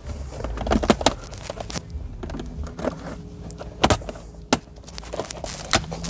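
Irregular clicks and knocks of hands working the Audi C7's gear selector and pressing its leather shift boot and console trim back into place, over a low steady hum.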